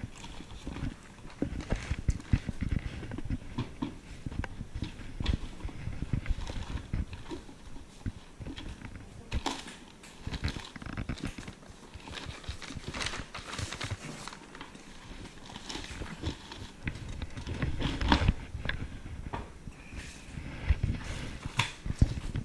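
Hands rummaging through bags, cardboard and a drawer of cables: rustling and irregular knocks and clatter of handled items, with footsteps. The loudest knocks come about eighteen seconds in and again near the end.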